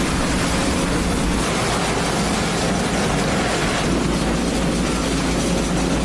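Road sweeper working: its engine and suction fan running with the rotating side brush scrubbing the asphalt, a loud, steady rushing noise over a low rumble.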